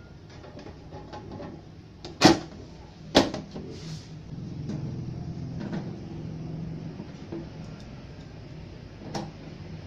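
Knocks and clicks of the amplifier's sheet-metal top cover being handled and set in place, with two louder knocks about two and three seconds in and smaller clicks after, over a low steady hum.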